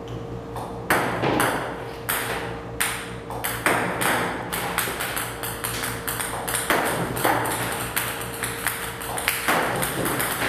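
Table tennis balls bouncing on a table tennis table, as from a ball robot firing them: sharp pings at an irregular pace, about two a second, over a steady hum.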